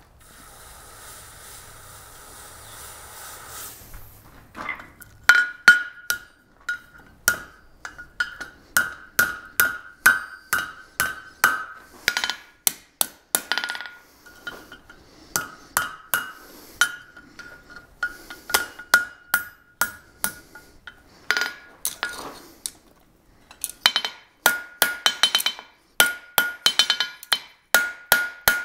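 A red-hot steel horseshoe is dipped into a bucket of water and sizzles for about four seconds. Then a blacksmith's hammer strikes it over the tip of the anvil horn in a long run of blows, each ringing from the anvil, with a brief pause past the two-thirds mark. The hammering bends the forged horse head over at the neck, which is still hot while the head has been cooled.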